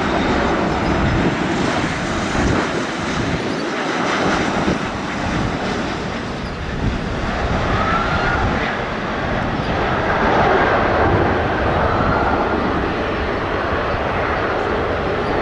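Boeing 737 MAX 8 airliner landing: its twin CFM LEAP-1B jet engines make a steady rumble through touchdown and the runway rollout, and the engine noise swells about ten seconds in.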